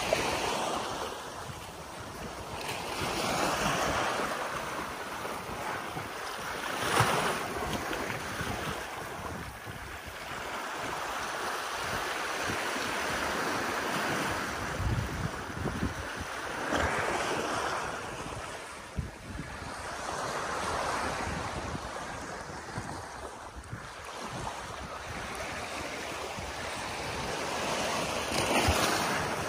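Small waves washing up onto a sandy beach and drawing back, swelling and fading every few seconds, with wind buffeting the microphone.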